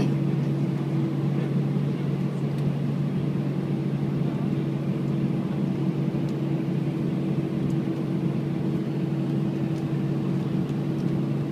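Cabin noise of an Airbus A319-114 taxiing with its CFM56 turbofan engines at idle: a steady low hum with an even rushing noise over it, unchanging throughout.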